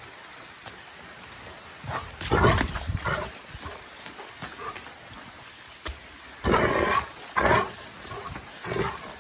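Maremma sheepdog growling and barking in play, in several short rough outbursts. The loudest come about two seconds in and again around six to seven seconds in. Rain falls steadily under them.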